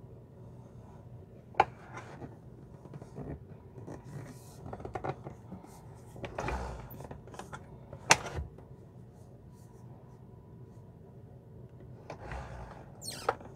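Rubbing and scraping as the plastic parts of an RV toilet are handled and fitted back together during reassembly, with two sharp clicks, one about a second and a half in and one about eight seconds in.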